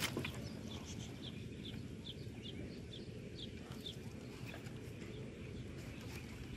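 A bird calling a run of short high chirps, about two a second, fading after about four seconds, over a steady low background noise.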